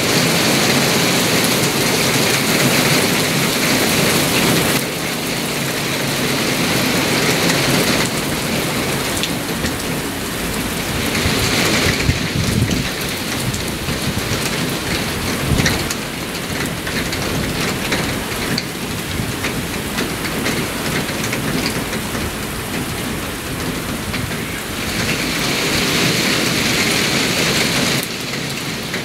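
Heavy thunderstorm downpour, a dense steady hiss of rain driven by squall wind, with a couple of low rumbles near the middle.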